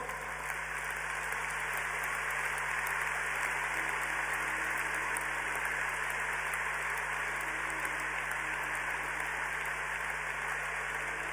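Large audience applauding steadily, an even dense clatter of many hands.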